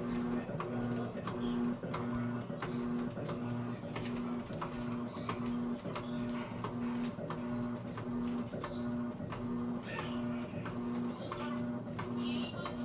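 Electrolux Essential Care LES11 washing machine agitating, its motor humming in an even on-off rhythm of roughly one pulse a second, with light clicks.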